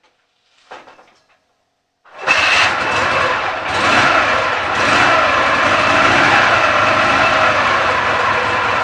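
Dnepr MT-10-36 motorcycle's 650 cc boxer-twin engine starting about two seconds in and then running steadily and loudly. The engine runs unevenly, its cylinders out of step, which the owner is trying to trace as a knock.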